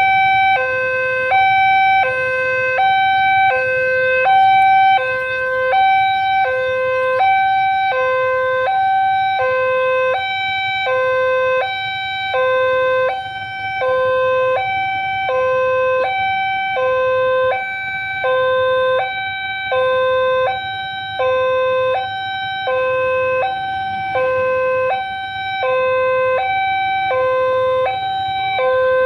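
Railway level-crossing warning alarm sounding as the barriers are down for an approaching train: an electronic two-tone signal switching high and low, about one high-low cycle every second and a half, over a steady higher tone.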